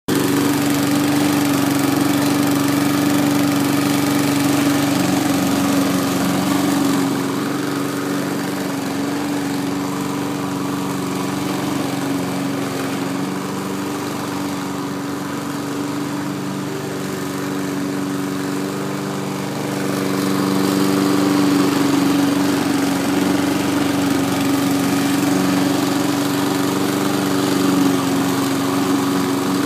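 An engine running steadily at a constant pitch, a droning hum that drops somewhat in level through the middle stretch and comes back up.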